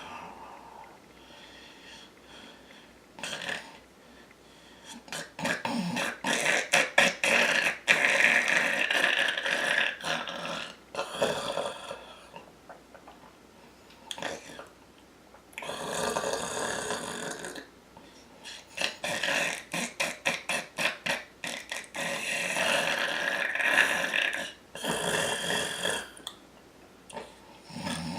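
A man snoring loud, rattling snores in long drawn-out bursts, about five in all, with short quiet gaps between them.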